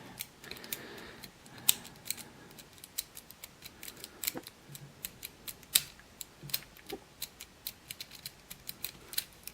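Metal rake pick being wiggled in and out of a 7-pin dimple lock's keyway: a run of irregular sharp clicks and scratches as it jostles the pins, with a couple of louder clicks about two and six seconds in.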